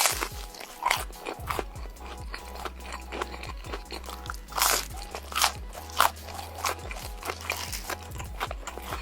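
Crunchy biting and chewing: many irregular, sharp crunches, the loudest about halfway through and about six seconds in, over background music with a steady low bass.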